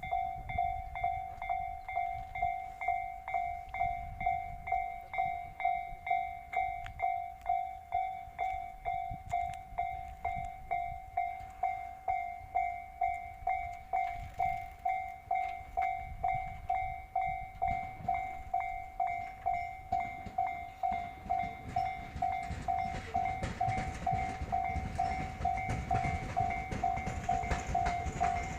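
Japanese railway level-crossing warning bell dinging steadily, about three dings every two seconds, while a train rumbles over the rails, the train growing louder near the end.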